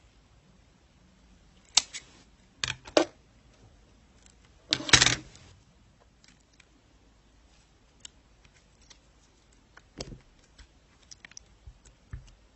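Scattered knocks and clicks of objects being handled, with a few sharp taps early on and a louder half-second clatter about five seconds in, then only faint ticks.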